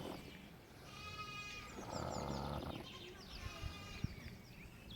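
Snoring from a sleeper: one long snore about two seconds in, with the tail of another at the very start. High chirping runs through the background.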